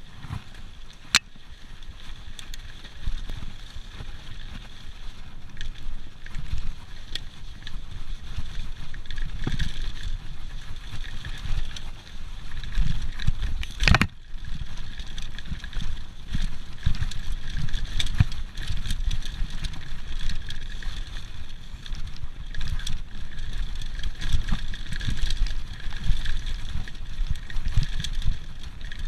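Mountain bike riding fast down a dirt forest trail: tyres rumbling over the ground, the bike rattling and thudding over bumps, with wind noise on the microphone. Louder after the first few seconds as speed builds, with a sharp click about a second in and a hard knock about 14 seconds in.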